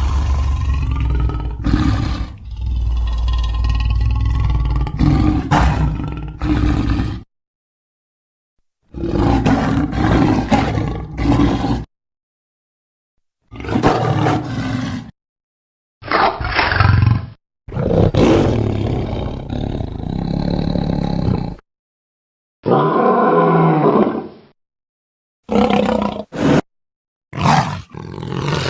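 Sabertooth cat vocal sound effects: a string of about eight separate roars and growls, the first lasting about seven seconds and the rest one to four seconds each, every clip cut off abruptly into dead silence before the next begins.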